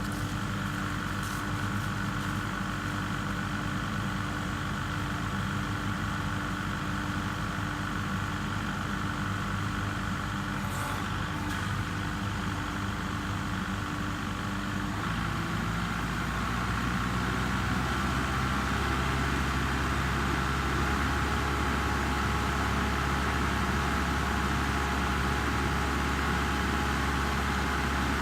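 Kubota MX5800 tractor's diesel engine running steadily, then speeding up and getting louder about fifteen seconds in.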